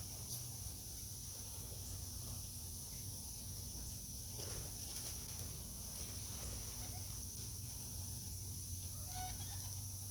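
A few faint animal calls, one about four seconds in and a rising one near the end, over a steady low hum and a steady high hiss.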